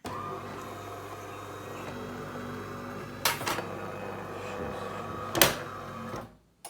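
DeLonghi Magnifica Pronto Cappuccino bean-to-cup coffee machine running its motor cycle, a steady hum with two sharp clunks about three and five seconds in, then stopping shortly before the end. It runs relatively quietly, without the squeak and knocking of its dry brew-unit drive gearing.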